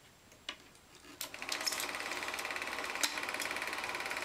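A few faint clicks, then from about a second in a rapid, even mechanical clatter.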